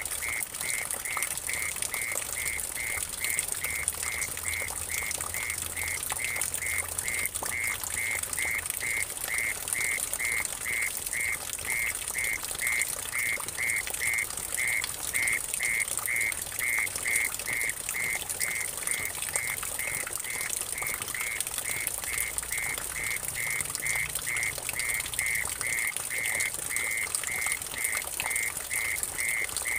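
Mole cricket (orong-orong) calling in steady, even pulses about two a second, over the splashing of water trickling and dripping into a puddle.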